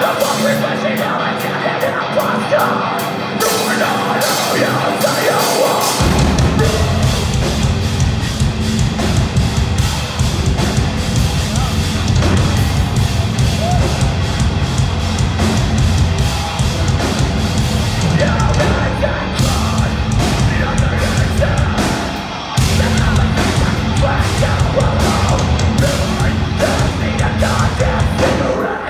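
Live metalcore band playing loud with vocals: a lighter opening without bass, then the drums, guitars and bass come in heavily about six seconds in, with a short break about two-thirds of the way through before the full band hits again.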